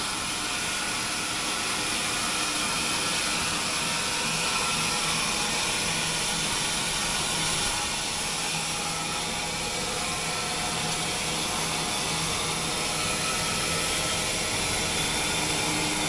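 Horse-powered sawmill machinery running: a steady hiss with a low hum underneath and no distinct strokes.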